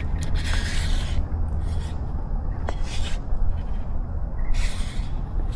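Rubbing and scraping noise over a steady low rumble, with two stretches of louder hissing scrape, one early and one near the end.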